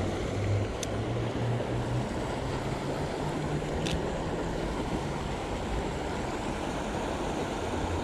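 Creek water rushing steadily over rocks, with two faint clicks.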